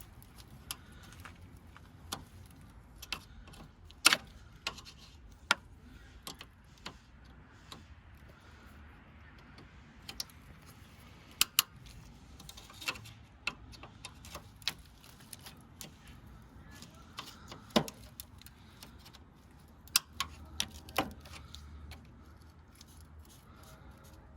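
Irregular sharp clicks and knocks of a hand tool working plastic automotive panel clips loose, scattered singly and in small groups, the loudest about four seconds in and near eighteen seconds.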